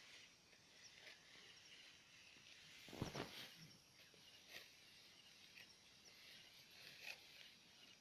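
Near silence: faint field ambience with a few soft rustles or knocks, the loudest about three seconds in.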